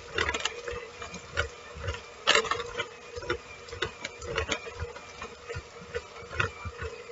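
Kitchen utensils clicking, tapping and scraping against a dish while shredding slow-cooked chicken: irregular knocks about one or two a second, one louder a little over two seconds in, over a steady faint hum.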